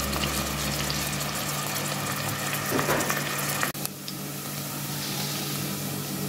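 Chopped onions frying in hot oil in a steel pot: a steady sizzle. It dips sharply a little past halfway, then carries on slightly quieter.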